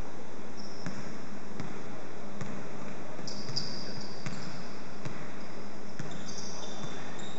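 Basketball dribbled on a hardwood gym floor, a bounce roughly every three-quarters of a second, with short high sneaker squeaks twice.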